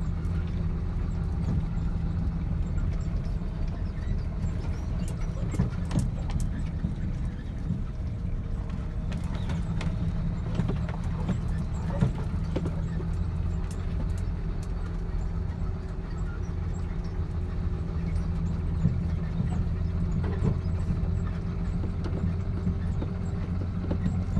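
Truck diesel engine running steadily, heard from inside the cab, with scattered short knocks and clunks.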